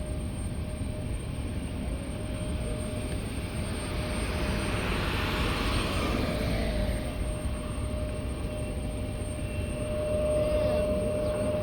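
Airplane engine noise swelling to a peak about five seconds in and then fading as the plane passes, over a steady low rumble.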